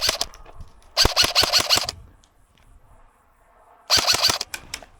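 Airsoft rifle firing rapid full-auto bursts: two short strings of sharp clicking shots, about a second in and near the end.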